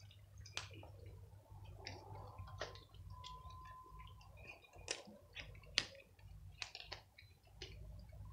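Cats crunching dry kibble: irregular sharp crunches and clicks, a few much louder than the rest, over a steady low hum.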